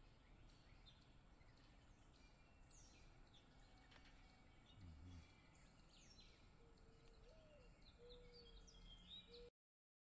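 Very faint birdsong: scattered short high chirps and trills of small birds, with a brief low sound about halfway. In the second half comes a soft low coo that rises and falls and then holds level, like a mourning dove's call. The sound cuts off suddenly just before the end.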